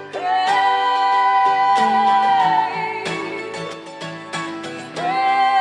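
Live acoustic folk-pop song: women's voices hold a long sung note over strummed acoustic guitar, then fall away, and a new held note begins near the end.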